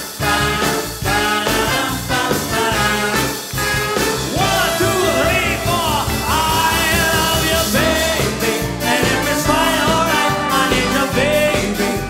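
Swing band playing over a steady beat, with a lead melody that slides and bends in pitch.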